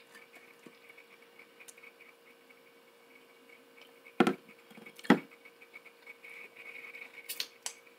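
Two sharp knocks about a second apart, then a couple of lighter clicks near the end, over a faint steady hum.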